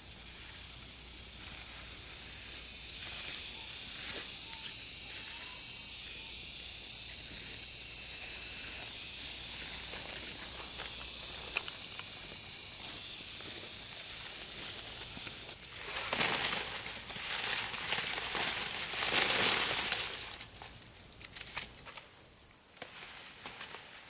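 A steady high-pitched hiss, then a few seconds of louder rustling about two-thirds of the way in.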